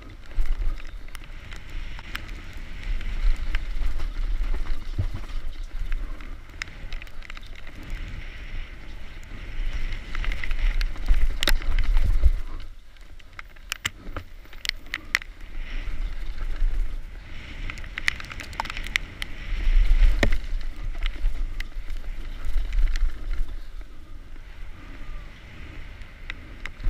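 Mountain bike running fast down a dirt trail: tyres rolling over dirt and gravel, with frequent sharp clicks and knocks as the bike rattles over bumps, and wind buffeting the helmet-mounted microphone in a low rumble that rises and falls.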